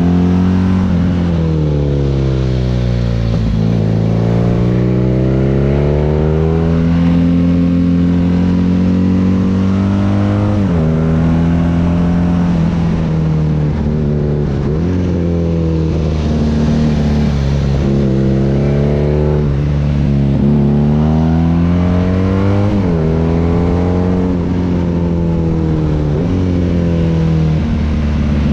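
BMW R nineT's air/oil-cooled boxer twin running through an Akrapovic exhaust under way. The engine note falls and rises over and over as the throttle opens and closes, with several abrupt pitch jumps from gear changes.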